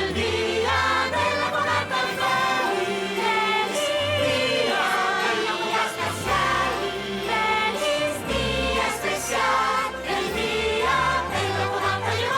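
Festive song: a choir of voices singing held, wavering notes over an instrumental backing with a steady bass.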